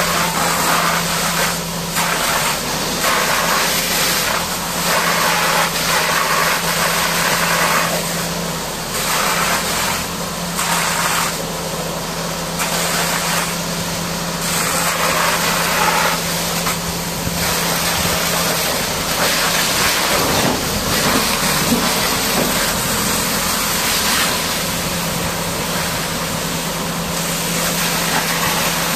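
High-pressure water jet blasting against a Caterpillar D6R bulldozer. It makes a loud hiss that swells and fades every second or two as the spray sweeps across the machine, over a steady engine hum.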